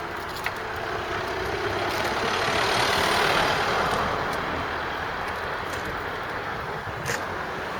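A road vehicle passing, its noise swelling to a peak about three seconds in and then fading away.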